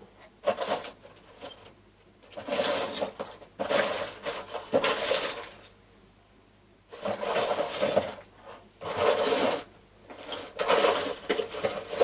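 Rummaging through a container of small metal items while searching for a key: clinking and rattling in about seven bursts of a second or so each, with a short pause midway.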